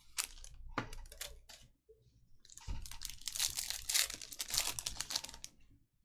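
A trading card pack wrapper crinkling and tearing as a pack is opened, dense crackling for about three seconds, after a few sharp clicks of cards being handled.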